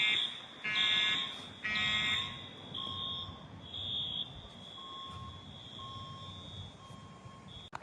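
Building fire alarm horns sounding during an alarm test: three buzzy blasts about a second apart, then fainter alarm tones carry on at a steady pitch.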